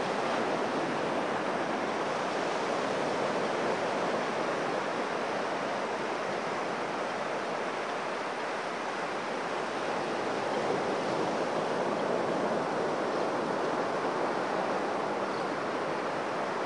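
Ocean surf breaking and washing steadily onto a sandy beach.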